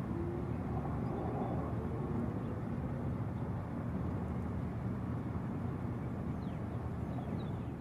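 Steady low outdoor rumble of wind or distant traffic, with a faint tone sliding slowly downward in the first second or so.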